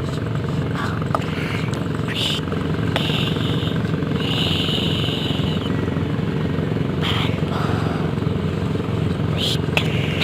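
An engine running steadily, with short high-pitched chirps or squeaks coming and going over it.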